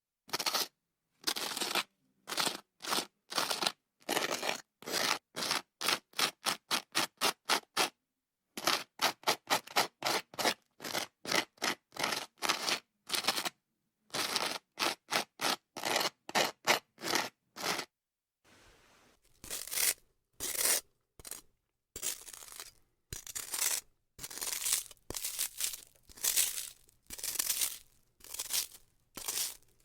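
Butter knife spreading butter on grilled French toast: a long series of short scraping strokes separated by brief silences. The strokes come in quick runs of several a second, then grow longer and louder in the last third.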